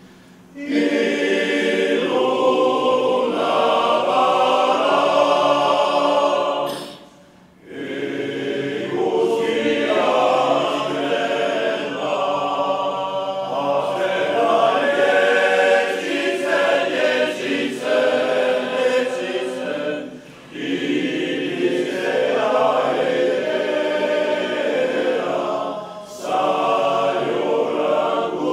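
Male-voice choir singing a Basque choral song a cappella, coming in about half a second in with the song's solemn opening. The singing goes in phrases with short breaks between them, the longest about seven seconds in.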